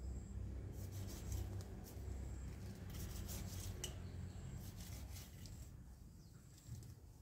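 Rustling and scraping of plant stems and leaves being handled, a run of short scratchy sounds that thins out about five seconds in.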